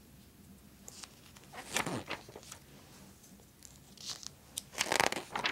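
Magazine pages being turned by hand, the paper rustling: a short rustle about two seconds in and a longer, louder one near the end.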